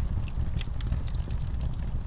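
Wood fire crackling, with frequent small sharp pops and snaps over a steady low rumble of burning.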